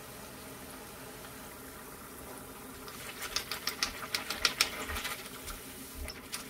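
Hot oil crackling and popping as a batter-dipped star-shaped metal mold is lowered into a wok of frying oil: a burst of sharp pops starting about three seconds in and lasting a couple of seconds, with a few stray pops after. Before that only a faint steady background.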